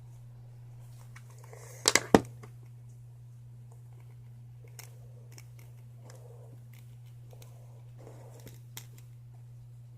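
Three sharp clicks in quick succession about two seconds in, then a few faint ticks, over a steady low hum.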